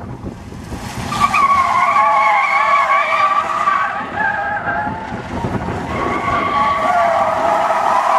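Rear tyres of a Buick woody station wagon squealing and skidding as it spins donuts under power from its 5.7-litre V8. The squeal starts about a second in, eases slightly in the middle, then builds again.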